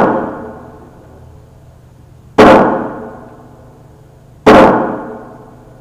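Gunshots at a shooting range: two loud, sudden shots about two seconds apart, each followed by an echoing tail that dies away over about a second, after the fading tail of a shot fired just before.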